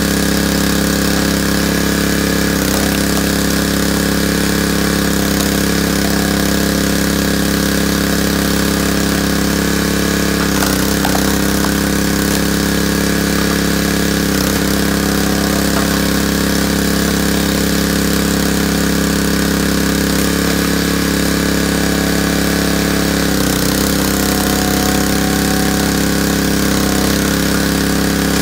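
Small gasoline engine of a hydraulic log splitter running steadily. Its tone shifts briefly a few times as the splitter's ram is worked through logs.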